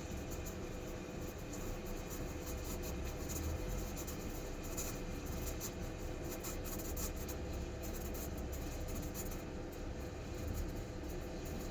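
Breville BES870 espresso machine's steam wand frothing milk in a jug, a steady hiss that holds at an even level.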